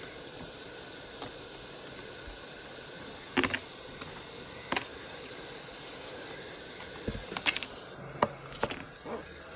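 Heat gun blowing steadily with a hiss and a faint fan whine, while metal pry tools click and clack against a laptop keyboard's metal backing plate: a few single clicks, then a quick run of clicks in the last couple of seconds.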